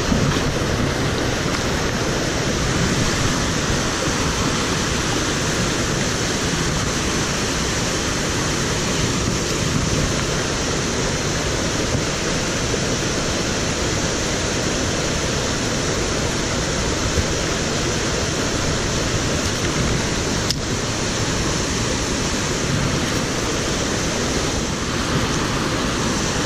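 Rocky mountain stream rushing over boulders in small cascades close by: a steady, unbroken rush of water.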